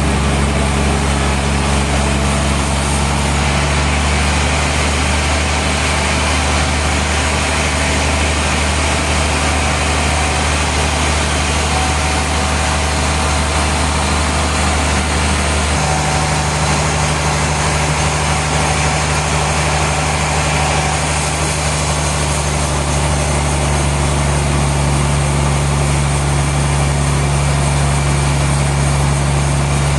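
Sawmill machinery running steadily and loudly: a low engine-like hum under a constant dense hiss. The low hum changes in tone about four seconds in and again around sixteen seconds.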